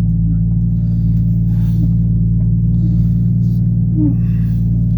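Jeep Cherokee engine idling steadily at a somewhat high idle, a constant low hum.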